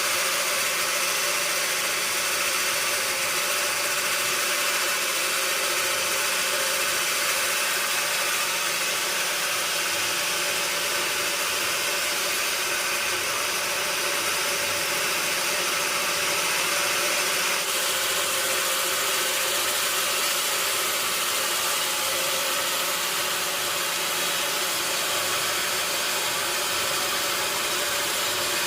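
Sawmill machinery running steadily: a continuous hiss with a steady hum beneath it, unbroken throughout.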